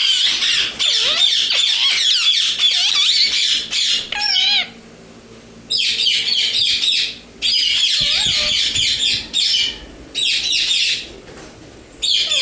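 Indian ringneck parrots squawking and chattering: dense shrill calls that rapidly swoop up and down in pitch, coming in bursts of one to four seconds with short quieter gaps.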